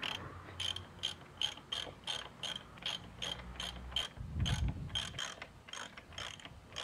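Socket ratchet wrench clicking, about three clicks a second, as a suspension preload adjuster is threaded onto a motorcycle fork top. The adjuster turns smoothly, not binding on the threads. A brief low rumble of handling is heard about two-thirds of the way through.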